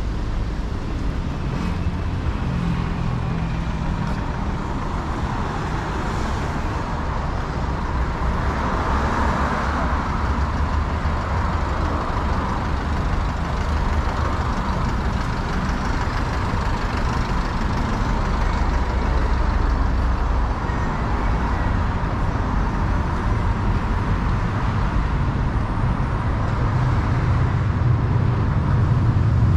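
Steady city road traffic: engines and tyres of passing cars and buses, with one vehicle swelling past about nine seconds in.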